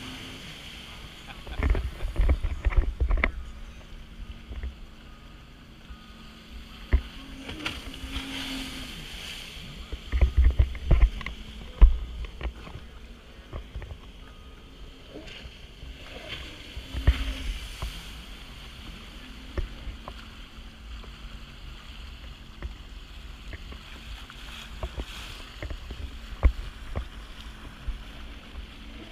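Jet ski engine running steadily under way, heard from a camera mounted on the craft, with loud bursts of low buffeting from wind and water hitting it a few times.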